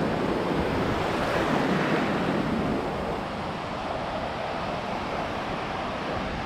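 Ocean surf breaking and washing in over shallow water: a steady rush, a little louder in the first few seconds, with wind buffeting the microphone.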